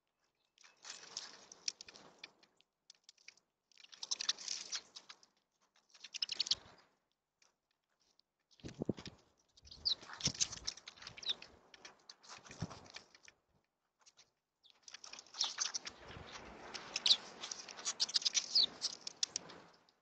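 House sparrows and mourning doves feeding at a tube seed feeder close to the microphone: clusters of pecking, scratching and wing flutter that come and go. The longest and busiest cluster comes near the end, with a few brief chirps mixed in.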